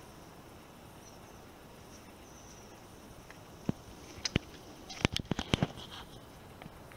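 Faint steady high-pitched hiss, then a cluster of sharp clicks and taps from about four to six seconds in.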